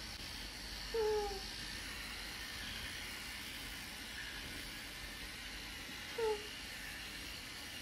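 A young girl's short whimpering moans, two brief falling cries, about a second in and again near six seconds, over faint steady room hiss. They come while her sore, bleeding gums are being brushed and are a sign of discomfort.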